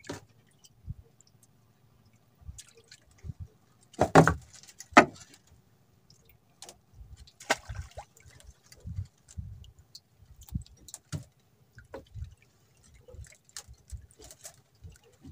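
Scattered small knocks and clicks of hands working fishing gear in a boat while a hook is rebaited, with two louder knocks about four and five seconds in, and a little water sound.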